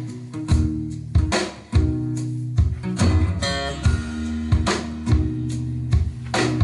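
Instrumental passage of a song with guitar over a steady drum beat and held bass notes, played through Pioneer CS-701 loudspeakers driven by a Revox A78 amplifier. A short run of higher guitar notes comes a little past the middle.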